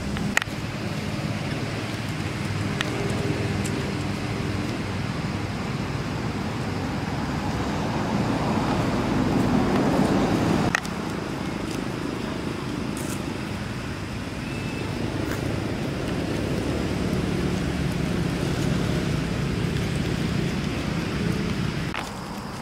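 Steady low rumble of distant road traffic, with a few faint clicks; the sound changes abruptly about eleven seconds in.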